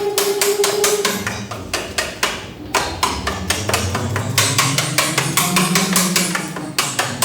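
Rapid, even tapping or knocking, about five strokes a second, over a low tone that slides slowly up and down in pitch.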